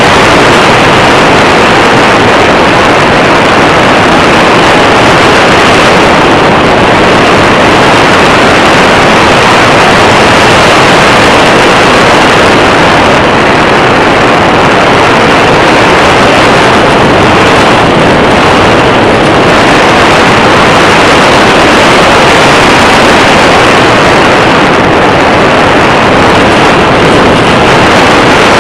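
Loud, steady rush of wind over the microphone of a small camera riding on a radio-controlled glider in flight.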